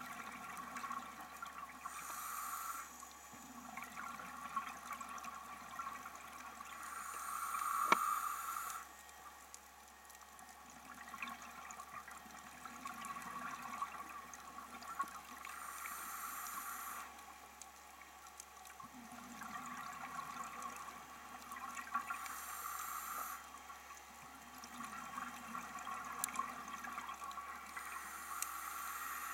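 Scuba diver's regulator breathing underwater: a slow cycle of hissing breaths and five bursts of exhaled bubbles, one every five to eight seconds.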